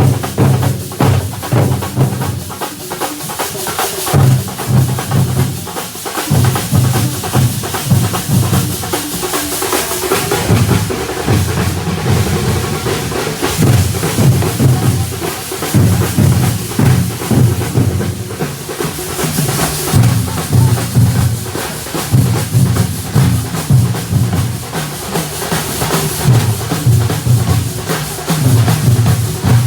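Loud, continuous drumming with a dense, driving beat and repeated low pulses.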